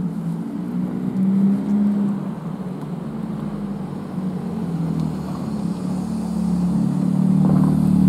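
Steady low engine hum from a vehicle, growing louder over the last couple of seconds.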